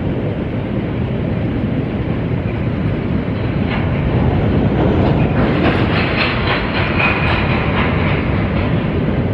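Freight train rolling past: a steady low rumble, with a rhythmic clickety-clack of wheels from about halfway through that grows a little louder.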